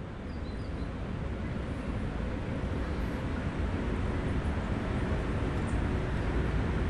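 Steady rumble of distant city traffic with no distinct events, slowly growing louder.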